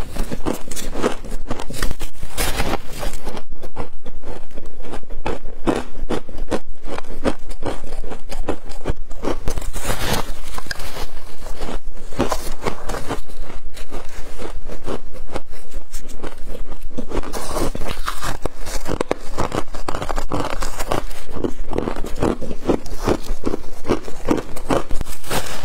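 Close-miked biting and chewing of freezer frost chunks: a dense, continuous run of crunches. Mixed in is the scrape and crumble of the gloved hand digging more frost out of the freezer.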